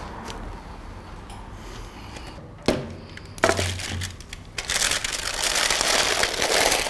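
Baking paper crinkling and plastic bottle caps shifting and clattering on it as a paper-lined tray of caps is handled, starting a little past halfway and continuing densely to the end. It is preceded by two sharp clicks.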